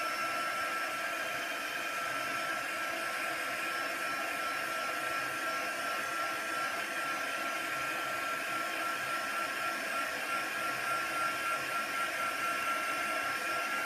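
Pink handheld craft heat tool blowing hot air, its fan running steadily with a constant high whine over the rushing air, drying freshly stamped ink on a painted journal page.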